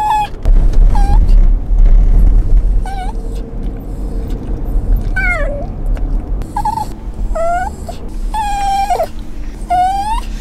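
Italian greyhound whining and crying: a string of short, high-pitched whines about one a second, each shaped differently, some rising and some falling. A low car rumble runs underneath, heaviest in the first few seconds.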